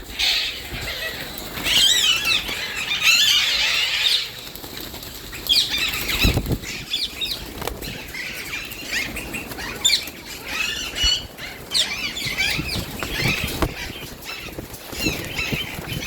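A mixed aviary colony of lovebirds and budgies chattering with constant overlapping shrill, squeaky calls, with wings flapping among them.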